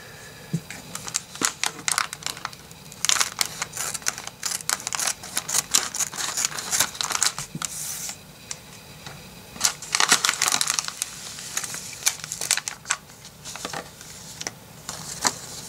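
Thin plastic LEGO polybag crinkling as it is handled and opened by hand, with many sharp clicks and several louder spells of crinkling.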